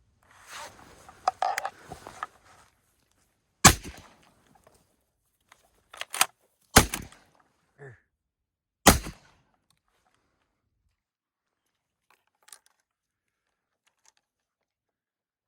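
Three shotgun shots at ducks, about two to three seconds apart, with a smaller sharp crack between the first and second. Rustling movement comes just before the shooting.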